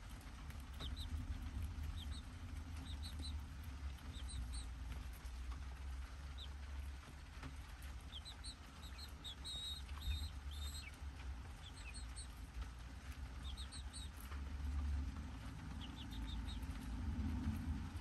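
Young chicks peeping in short clusters of soft, high chirps while pecking at a corn cob, with a few light taps. A steady low rumble runs underneath.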